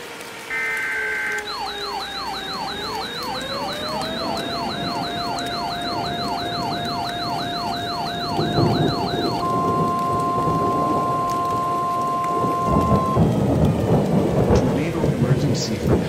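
Emergency alert sounds over a thunderstorm with heavy rain. A short burst of SAME data tones comes first, then a fast yelping siren together with a siren winding up to a steady wail, then the steady 1050 Hz NOAA Weather Radio warning alarm tone. Thunder rumbles near the end, signalling an incoming tornado warning.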